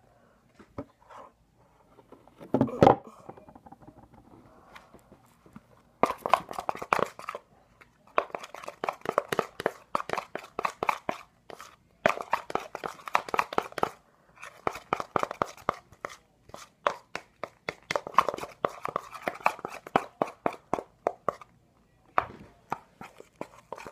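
A metal spoon stirring a glue, shaving cream and soap slime mixture in a bowl: rapid clicking and scraping in bursts of a few seconds with short pauses, after a single loud knock about three seconds in.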